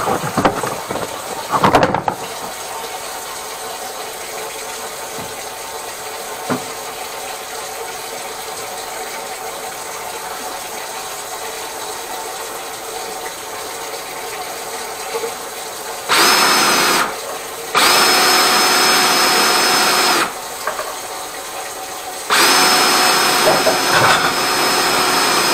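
Electric high-pressure drain jetter running in three short bursts about 16, 18 and 22 seconds in, each starting and stopping abruptly with a steady motor whine, while a kitchen sink drain clogged with grease is jetted clear. A steady hiss lies under it throughout, with a couple of knocks near the start.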